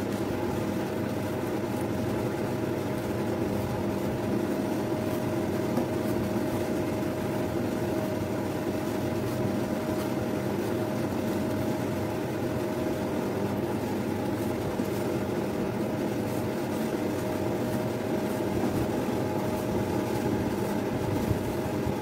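Metal spatulas scraping and spreading ice cream mixture across a frozen rolled-ice-cream plate, over a steady machine hum with a constant tone.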